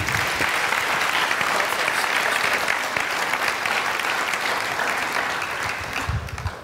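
Congregation applauding steadily, the clapping tailing off near the end.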